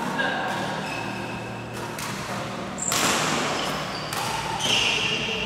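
Badminton hall background: thuds and two short high squeaks from players on the courts over a steady low hum of the hall.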